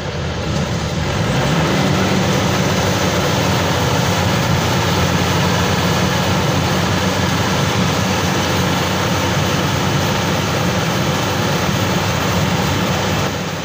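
Maxxi Bimo 102 crawler combine harvester's engine running hard at high revs as the machine drags itself out of deep paddy mud over a wooden log. The steady drone gets louder about a second or two in and drops away just before the end.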